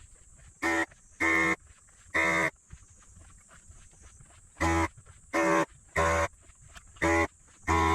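Multimeter continuity buzzer sounding in short buzzy beeps of uneven length, eight times, as the test probes touch and lift off the inverter's FET pins.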